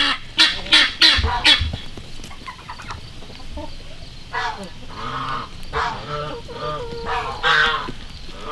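Domestic geese honking repeatedly: a quick string of honks, a short lull, then another run of honks from about four seconds in.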